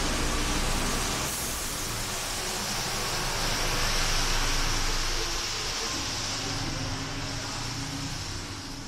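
Street traffic: a motor vehicle running past, swelling about four seconds in and easing off near the end.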